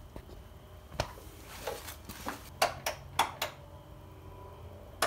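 A sharp click about a second in, then a run of lighter clicks and knocks over a faint low hum.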